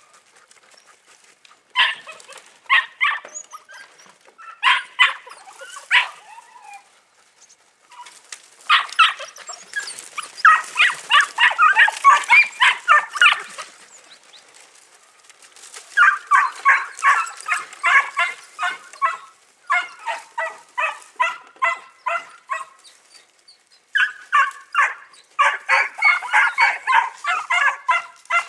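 Podenco puppies yapping in quick, high-pitched bursts of several barks a second, in bouts of a few seconds broken by short pauses.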